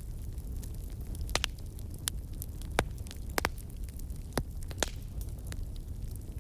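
Campfire crackling: scattered sharp pops at irregular intervals over a low steady rumble.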